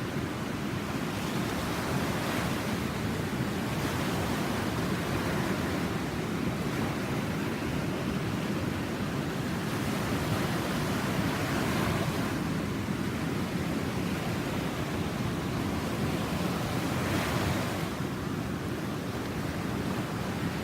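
Ocean surf from a typhoon swell breaking continuously, with louder swells as individual waves break, about three times, and wind rumbling on the microphone.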